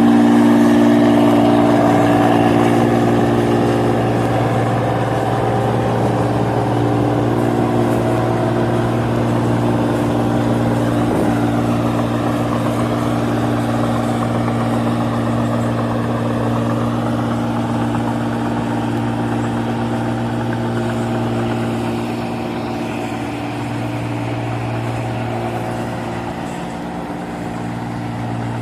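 New Holland Clayson 8060 combine harvester running at a steady pitch, slowly getting quieter over the stretch.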